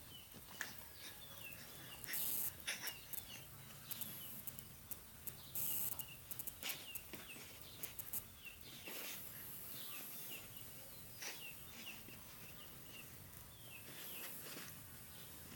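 A bird chirping over and over in short, high chirps, with a few short, loud bursts of noise about two and five and a half seconds in.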